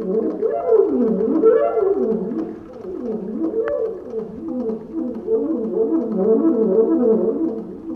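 Alto saxophone playing fast arpeggio runs that sweep rapidly up and down, over and over.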